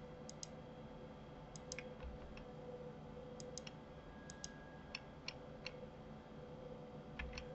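Faint, scattered clicks of a computer mouse and keyboard, several in quick pairs, over a faint steady hum.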